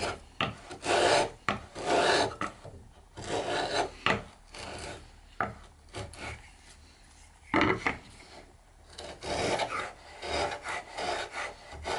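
Router plane shaving a beech tenon cheek flat: the blade scrapes across the wood in a series of short, uneven strokes, roughly one a second, with brief pauses between.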